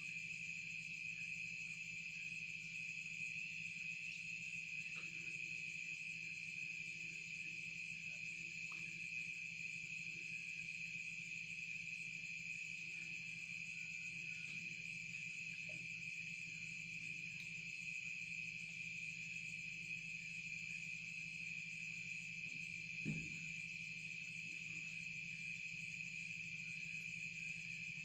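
Steady chorus of insects such as crickets, a continuous high-pitched trilling, over a low steady hum. A single brief thump comes about 23 seconds in.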